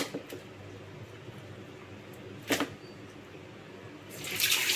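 Water splashing, with two sharp knocks about two and a half seconds apart and a louder rush of water near the end.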